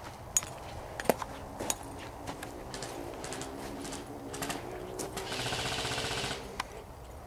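Airsoft electric gun firing a full-auto burst of about a second and a half: a fast, even rattle. Before it come a few scattered sharp snaps.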